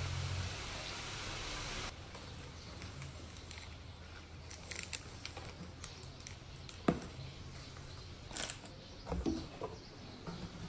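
Scattered rustles and taps of boxed packaging in a plastic bag being handled, with a sharp click about seven seconds in. A steady hiss in the first two seconds cuts off abruptly.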